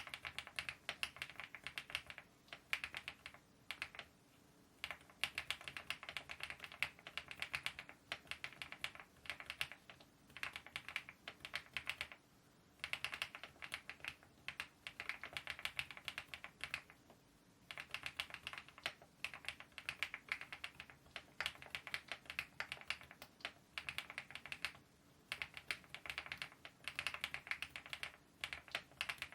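Typing on a foam-dampened mechanical keyboard fitted with KeyTok Godzilla dye-sublimation keycaps in a smile profile: long runs of quick keystrokes with a few short pauses.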